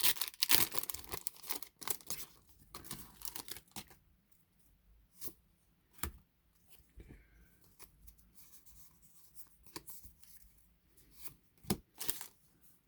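Foil wrapper of a Pokémon trading-card booster pack being torn open and crinkled for about four seconds, then a few sharp clicks and taps as the cards are handled.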